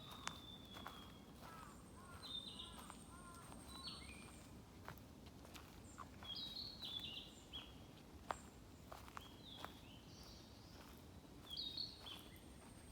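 Small songbirds singing in a woodland: short, high, stepped phrases repeated every two seconds or so, with a thin high held note now and then. Soft footsteps crunch on the path underneath.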